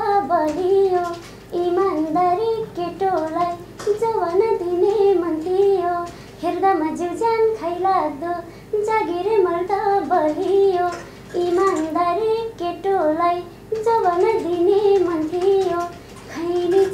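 A young woman singing without accompaniment, in short wavering, ornamented phrases with brief breaks between them.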